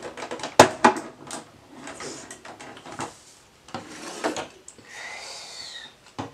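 Plastic toy ambulance being handled on a wooden tabletop: clicks and knocks as its hinged lid is lifted and parts inside are moved, with rubbing in between. A short high tone, falling slightly, sounds about five seconds in.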